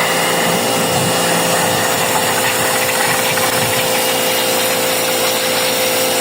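Electric pressure washer running steadily: a constant motor hum under a broad hiss of spraying water.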